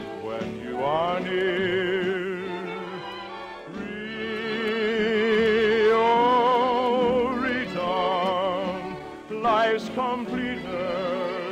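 Operatic singing with wide vibrato over an orchestra, from a 1948 radio broadcast. A long held note swells to the loudest point in the middle, with quick rising runs about a second in and near the end.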